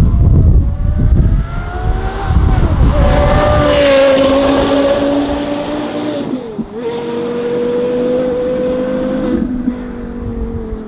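Porsche Carrera GT's 5.7-litre V10 through a Kreissieg straight-pipe exhaust, revving high as the car accelerates past, loudest about four seconds in. The revs dip briefly near the middle, then the engine holds a high steady note as the car pulls away, growing fainter.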